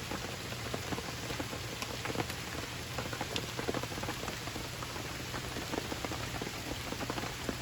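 Steady rain falling, with many small raindrop ticks scattered through it.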